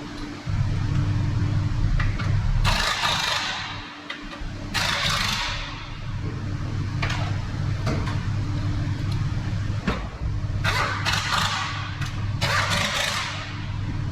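Car engine running steadily with a low hum, broken by four short bursts of hissing.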